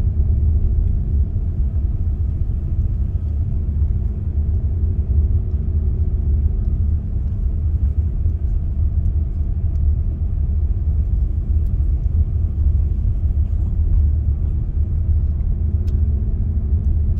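Truck running, heard from inside the cab: a steady low rumble with a faint engine hum, with no change in pace.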